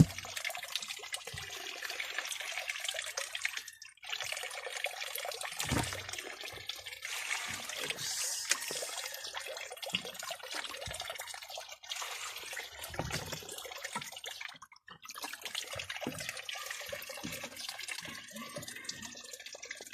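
Water splashing and trickling as water is let out of a shallow tub of koi fry, running in spells with short breaks, with a few low knocks against the container.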